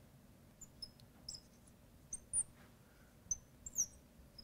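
Marker squeaking on a glass lightboard as numbers are written: a dozen or so short, high squeaks at irregular intervals, some sliding in pitch.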